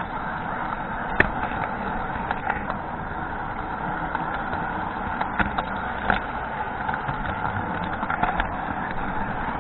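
Model train running along its track, heard from a camera riding on the train: the steady run of its motor and wheels on the rails, with a few sharp clicks, the clearest about a second in.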